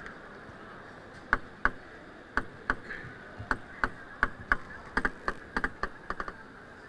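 Table tennis rally: the ball clicks sharply off the table and the players' rackets in quick alternation, starting about a second in. A quicker run of clicks comes near the end, where the rally stops.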